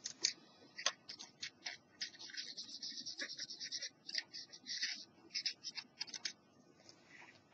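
Faint quick plastic clicks and scratching from fingers working the opened Panasonic portable cassette player's mechanism, with a dense run of rapid ticking through the middle.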